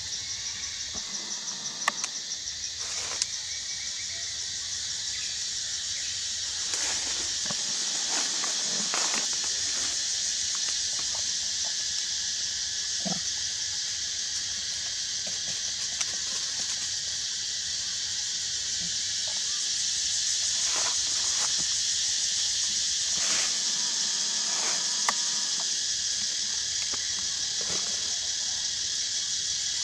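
Steady high-pitched insect chorus from the forest, an unbroken shrill drone, with a few faint scattered clicks.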